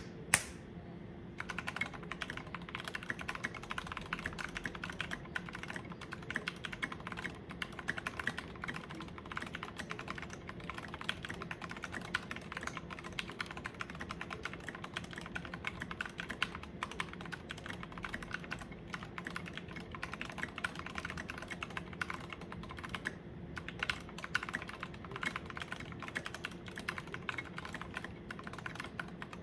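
Typing on a mechanical keyboard with lubed Gateron Black Ink linear switches in a Pearl 40% board with a brass plate: a steady, rapid stream of keystrokes, with one brief pause about 23 seconds in. A single sharp click comes right at the start.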